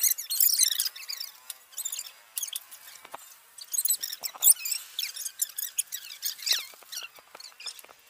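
Metal pivots of outdoor park gym machines squeaking as they swing back and forth under use, a string of irregular high-pitched squeaks.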